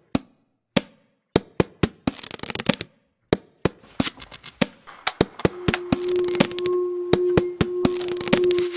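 Sharp percussive clicks and knocks, sparse at first with a short rattling flurry, then quickening into a rhythm as a steady held tone comes in about five and a half seconds in: a percussive music intro.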